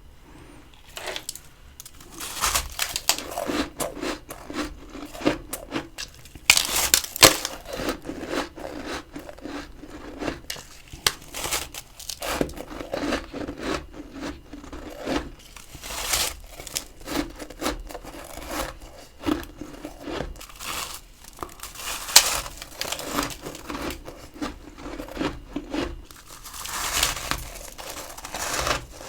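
Freezer frost crunching and crackling close to the microphone, in dense irregular clusters of crisp crackles.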